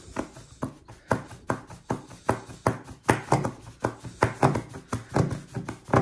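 A red reciprocating-saw (Sawzall) blade clamped in the locking pliers of a Leatherman Crunch multitool, pushed and pulled by hand through the edge of a tongue-and-groove wooden board: repeated back-and-forth sawing strokes, about three a second.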